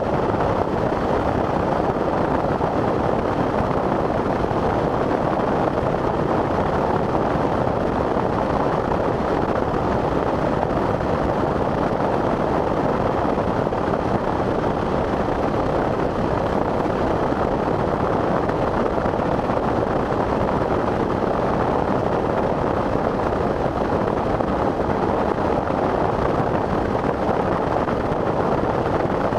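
Hard rain on a moving vehicle, a steady, even rush mixed with road noise that holds at one level throughout.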